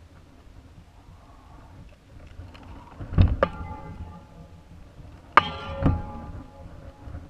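Two sharp knocks on the balloon payload's enclosure, about two seconds apart, each followed by a brief ringing tone, over a faint low rumble.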